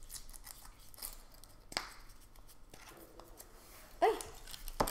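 Small plastic clicks and rustles as fingers twist and pry apart the yellow plastic capsule from a Kinder Surprise egg, with one sharp click a little under two seconds in. A brief high vocal sound about four seconds in is the loudest moment, followed by a couple more clicks.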